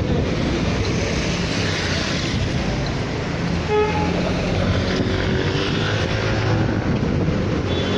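Steady city street traffic: cars running past with a continuous low rumble, and a brief beep just before four seconds in.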